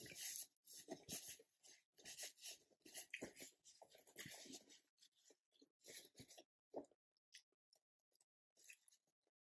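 Close-up chewing of a mouthful of chicken taco: soft, irregular chewing sounds that fade out about seven seconds in.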